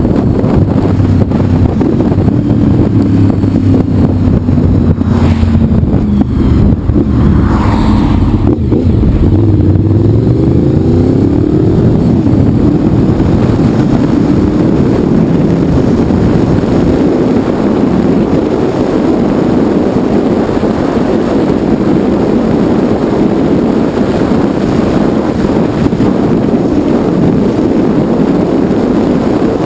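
Honda VFR750's V4 engine running at road speed under heavy wind rush on the microphone, with the engine note rising about ten seconds in as the bike accelerates.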